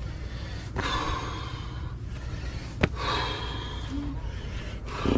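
A person breathing hard, out of breath from climbing steep stone steps: two long, noisy breaths, with one sharp click between them.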